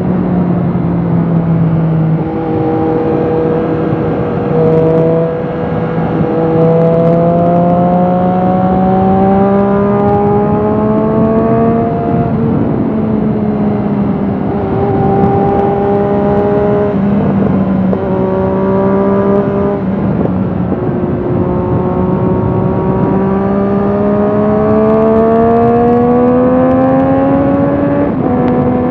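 Triumph Street Triple RS 765 cc inline three-cylinder engine running through an Akrapovic slip-on exhaust, heard onboard while riding over wind rush. The engine note climbs slowly in pitch and dips back several times, at about 2, 12, 17, 20 and 28 seconds.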